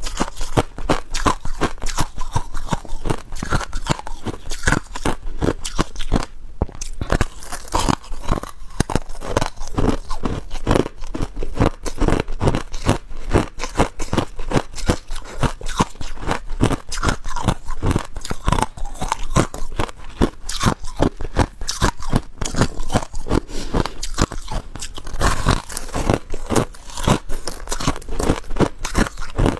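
Crushed ice being bitten and chewed: a dense, continuous run of sharp crunches with only brief pauses.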